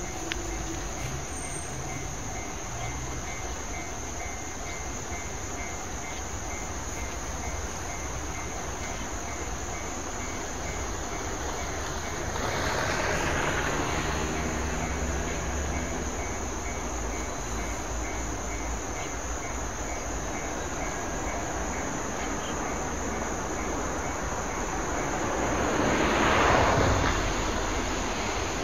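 Trackside ambience: a steady hiss with a thin high insect-like whine, and two swells of passing noise, one about halfway through and one near the end. A JR 485 series electric express is approaching from afar.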